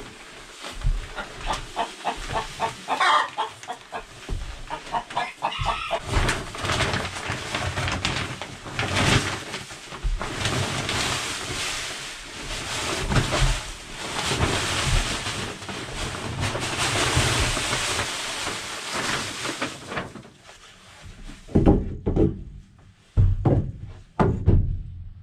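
Pine shavings bedding pouring out of a bag onto a chicken coop floor, a dense rustling hiss with louder rushes, with hens clucking. A few sharp knocks near the end.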